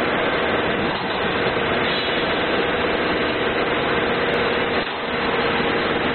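Steady hum and noise of industrial machinery running, even in level throughout, with a faint steady tone.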